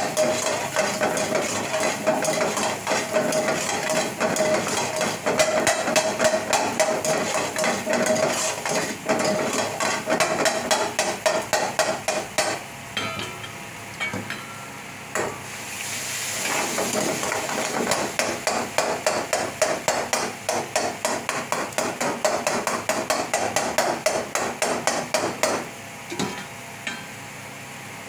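Metal ladle rapidly clanging and scraping against a steel kadai as a masala is stirred and tossed over a gas flame. About halfway through the strokes pause briefly and a sizzle rises, then the rapid clanging resumes.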